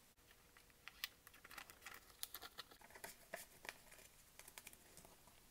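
Faint, scattered light clicks and crinkles of a trading card in a rigid plastic toploader being handled and turned over in the hands.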